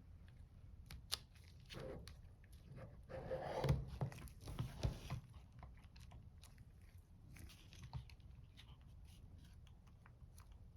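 Faint close handling noises as the controller and its rubber grip are pressed and worked by hand: scattered light clicks and taps, with a stretch of rubbing and rustling about three to five seconds in.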